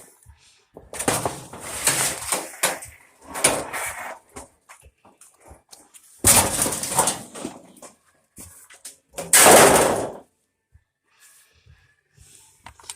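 Four bursts of scraping and rattling, each about a second long, from building materials being moved and handled during pen repair work; the burst near the end is the loudest.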